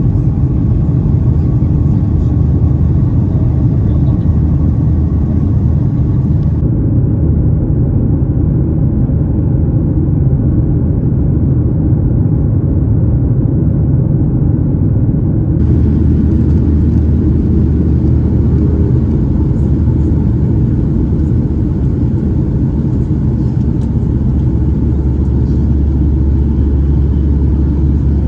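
Steady rumble of a Boeing 737-800's jet engines and airflow heard from inside the passenger cabin. The sound goes duller for about nine seconds in the middle.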